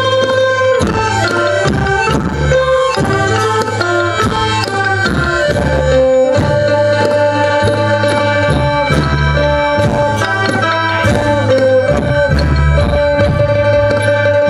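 Live traditional Thai folk ensemble music: melodic instruments with sustained notes over a steady beat of hand drums.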